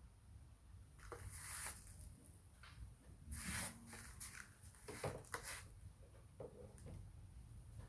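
Faint rustling with a few soft scrapes and small clicks, loudest about one and a half, three and a half and five seconds in.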